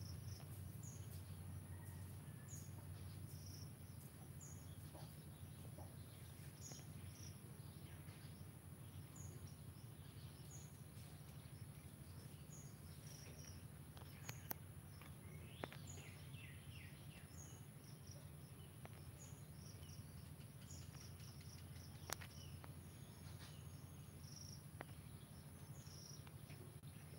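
Faint outdoor ambience: a steady low hum and a steady high whine, with short high chirps repeating about once a second and a few soft clicks.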